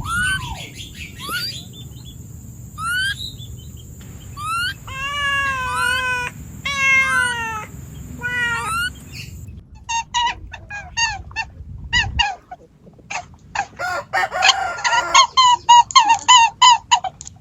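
Birds calling: a series of sweeping, whistled calls, then from about ten seconds in a fast run of short, repeated chattering notes.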